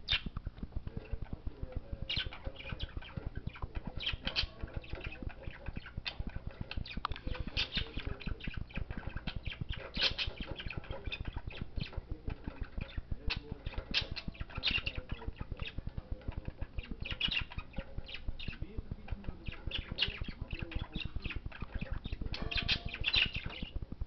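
Budgerigar pecking and chewing at a chew toy on its cage bars: a fast, uneven run of dry clicks and scratching, with brighter bursts every second or two.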